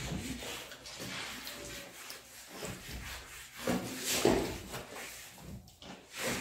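Eating sounds: chewing and mouth noises as rice and curry are eaten by hand, with fingers mixing and scraping food on stainless steel plates. Irregular short noises, loudest about four seconds in.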